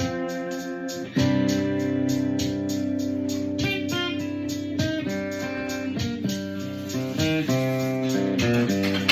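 Ovation guitar in open C tuning playing and holding chords that change every second or so, some notes gliding in pitch, over a steady ticking beat.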